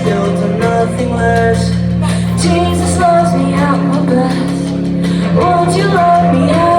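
Live rock band playing, with a woman singing a melody over long held low chords.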